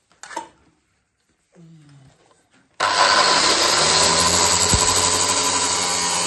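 A power tool cutting steel starts suddenly about three seconds in and runs loud and steady, after a few faint handling sounds.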